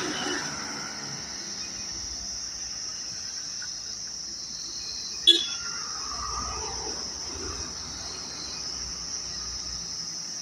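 Insects shrilling steadily in one high-pitched drone, with a single sharp click about five seconds in.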